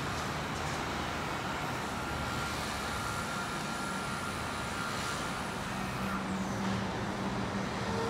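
Steady outdoor urban traffic noise, with a faint high tone in the first few seconds and a low engine hum coming in about six seconds in.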